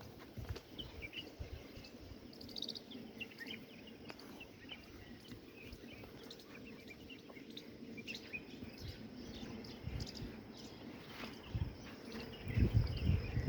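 Outdoor farm background with faint bird chirps scattered throughout. A loud low rumbling noise rises near the end.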